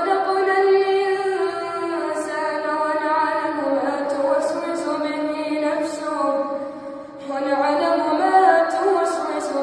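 A boy's voice reciting the Quran in melodic tajweed style, drawing out long, ornamented held notes. The voice breaks off briefly about seven seconds in for a breath, then resumes.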